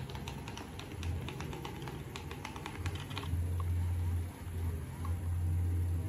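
A quick run of light, sharp clicks for about three seconds, then a low hum that comes in surges and is loudest near the end.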